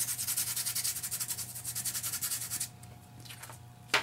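Fingers rubbing fast back and forth over heat-set distress embossing powder on cardstock, a rhythmic scratchy brushing that knocks off the loose release crystals; it stops about two-thirds of the way through. A sharp tap comes at the very end.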